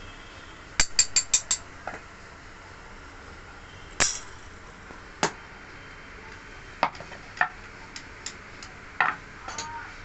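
Sharp metallic clinks and clatters of cast metal belt-buckle trees knocking against each other and the hard floor: a quick run of five clinks about a second in, then single knocks every second or so, the last one ringing briefly.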